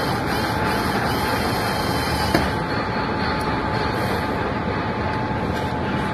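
Steady, even roar of workshop background noise with a faint steady hum through it, and a single sharp click about two and a half seconds in.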